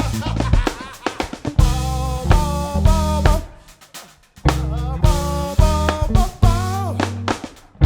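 Live band music: a drum kit and bass playing a groove with a melody line over it, and a short break in the middle where nearly everything stops before the band comes back in.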